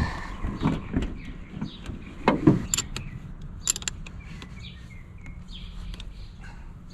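Scattered clicks and knocks of hands and tools at the car battery as it is reconnected, the loudest about two and a half seconds in. Birds chirp faintly in the background.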